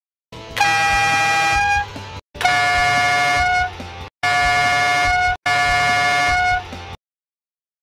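Squeaky toy ball squeezed four times, each squeak a steady tone lasting over a second; the first squeak is slightly higher-pitched than the other three.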